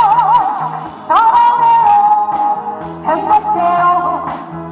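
A woman singing into a microphone with instrumental accompaniment. A held note with wide vibrato ends about half a second in, and a new sung phrase begins about a second in.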